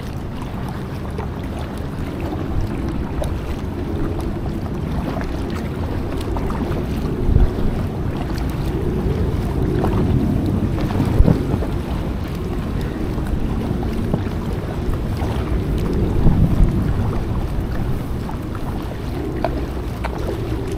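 Wind buffeting the microphone of a small paddled packraft on open water, a steady low rumble that swells and eases. Three sharp knocks are spread through it.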